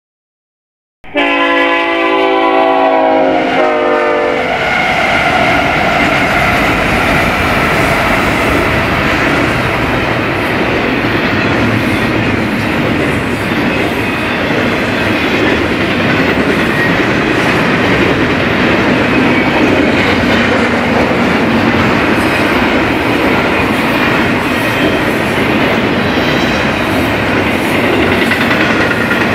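Freight locomotive horn blowing for about three seconds, its pitch sliding lower at the end. It is followed by the steady running noise and wheel clatter of a BNSF double-stack intermodal train's cars rolling past.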